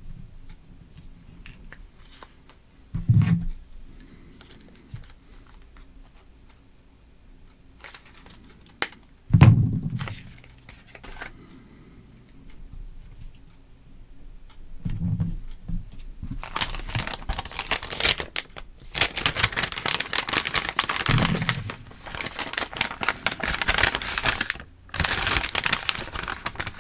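Plastic component cut tape and adhesive tape being handled and pressed onto a paper parts sheet: a few dull thumps, then a long stretch of crinkling and tearing-like rustle with a short pause near the end.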